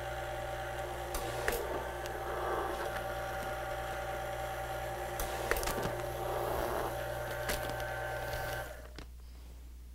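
Flex+Matic flat label applicator's motor running with a steady hum as it draws a poly bag through and applies a label, with a few light clicks and crinkles from the bag. The hum cuts off near the end.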